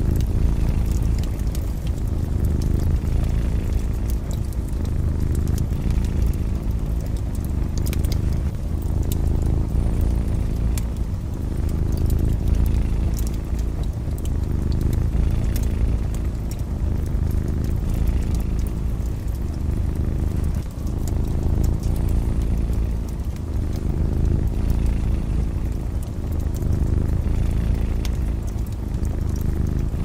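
Domestic cat purring, a steady low rumble that swells and eases about every two seconds, over a wood fire crackling with scattered small pops.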